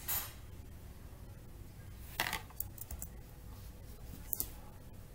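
A few short clicks of computer keys and mouse buttons while code is being edited: one at the start, a cluster just after two seconds, and another pair a little past four seconds, over a low steady hum.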